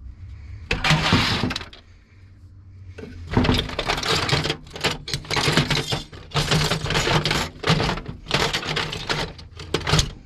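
Hand tools clattering and rattling against each other as someone rummages through a toolbox. There is a short burst about a second in, then almost continuous clatter from about three seconds in.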